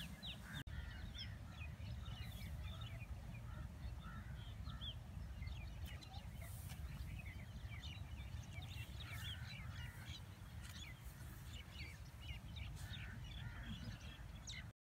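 Many birds chirping and calling in quick, overlapping short notes over a steady low rumble; the sound cuts off abruptly just before the end.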